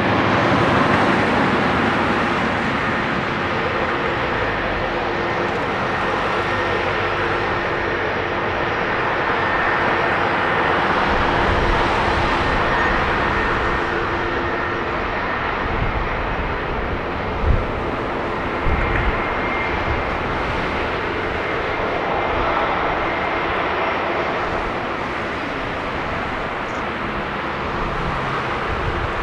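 Boeing 747-200 freighter's four jet engines running in a steady roar as the airliner taxis onto the runway for takeoff. A thin steady whine sits in the roar and fades out about halfway. A couple of brief low thumps come in the middle.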